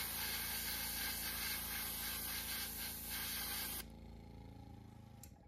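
Iwata Eclipse airbrush spraying paint: a loud, steady hiss of air that cuts off about four seconds in, leaving a fainter steady hum with a few low tones.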